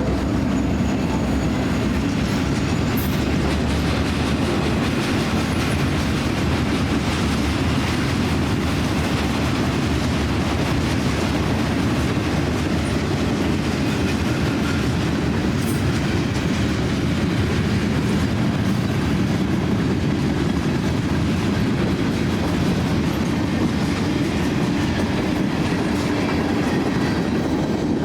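Freight train rolling past: a loud, steady rumble of railcars running over the track.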